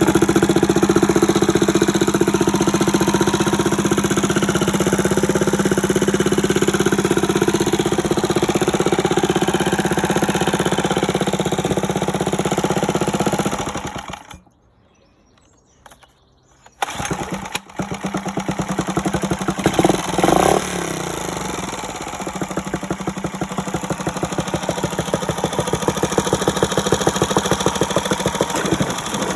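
Mercury 3.5 hp long-shaft outboard motor running, cutting out about halfway through, then starting again after a few seconds of quiet and running on. It runs on an old spark plug that the owner says gives a poor spark and keeps the engine from accelerating.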